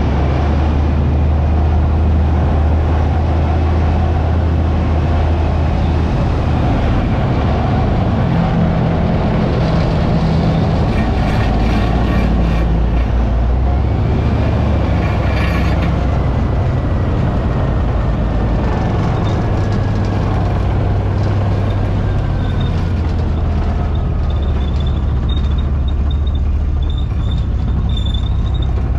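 Leopard 1A5 main battle tank on the move, its V10 multi-fuel diesel engine running with a steady deep drone under load. Bursts of sharp clatter come around the middle, and a faint whine slowly falls in pitch in the second half.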